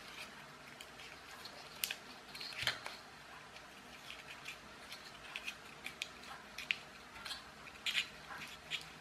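Hands handling a small wooden toy train and turning its wheels and axle to wind on the rubber band: faint, irregular light clicks and taps, with a short scrape about two and a half seconds in.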